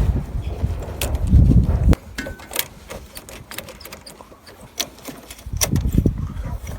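Scattered clicks and knocks of an old soybean planter's metal parts being handled while its chain and bearings are checked, with low rumbling of wind on the microphone for the first two seconds and again near the end.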